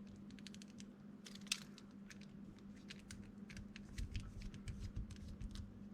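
Light clicks and taps of small screws and a screwdriver being worked into a 3D-printed plastic part, with a sharper click about a second and a half in and a few duller knocks near the middle. A steady low hum runs underneath.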